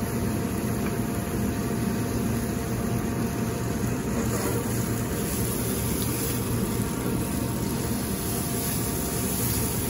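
Steady rushing noise of a commercial kitchen range, from the ventilation and the open gas burners, with diced onion frying in oil in a small aluminium pan. The high hiss gets brighter from about four seconds in.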